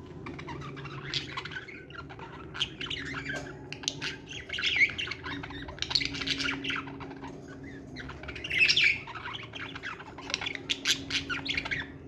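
A flock of budgerigars chattering and squawking: a dense run of rapid chirps and harsh calls, with louder squawks about five and nine seconds in.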